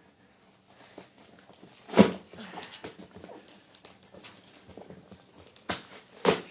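Cardboard printer box being handled and worked open by hand, with rustling and scraping, one loud sharp knock about two seconds in and two more knocks near the end.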